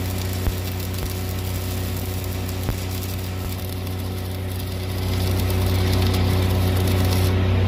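Stick-welding arc on steel pipe, a dense steady crackle, over the continuous drone of an engine-driven welding rig running. The sound grows a little louder about five seconds in.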